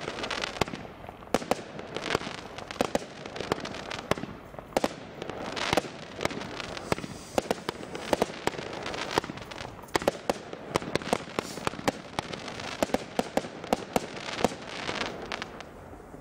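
Consumer fireworks cake (a 70-shot big-bore barrage) firing a rapid string of shots, several a second: sharp launch reports and aerial breaks over a steady crackling hiss from the crackling-tipped willow effects. The firing stops about a second before the end.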